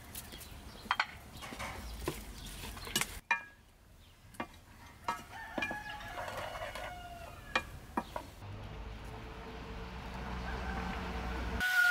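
A rooster crowing in the background, once around the middle and again, louder, at the very end. In the first few seconds there are sharp clicks and knocks of a spoon against a metal pot as a chopped filling is stirred.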